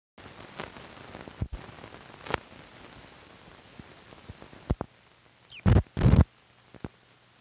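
Optical soundtrack of a worn film print running before the programme starts: steady hiss with scattered crackles and pops, and two loud thumps close together about six seconds in, after which a low hum sets in.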